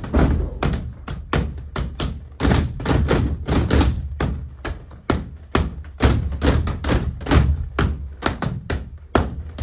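Inflatable beach balls being patted and slapped by many hands at once, an irregular run of short thuds and taps, several a second.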